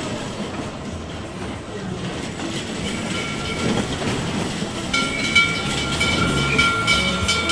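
Mine-train roller coaster car running along its steel track with a steady rumble and clatter. A high, steady squeal comes in about three seconds in and grows louder from about five seconds in.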